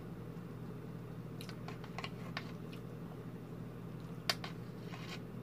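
Person eating close to the microphone: chewing, with scattered sharp clicks of a spoon and fork against the dish, the sharpest just past four seconds in. A steady low hum lies underneath.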